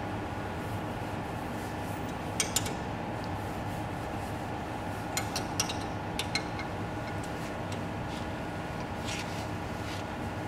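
Light metallic clicks and clinks of a hand tool on the bolts that clamp the CNC wood lathe's turning knives in their holders, as the knives are tightened. They come in small clusters a few seconds apart, over a steady background hum.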